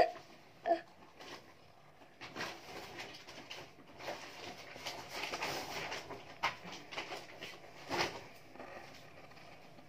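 Ballpoint pen scratching faintly on paper in short drawing strokes, with a couple of sharper taps about two-thirds of the way in.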